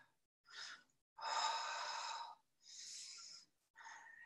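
A woman's breathing during exertion: four separate breaths, a short one, then a longer, louder one lasting about a second, followed by two more.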